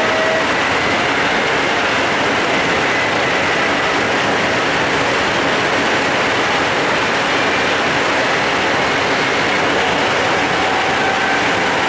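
Steady running noise inside a British Rail Mk3 passenger coach of a moving HST: wheels rolling on the rails, with a few faint steady whines over the din.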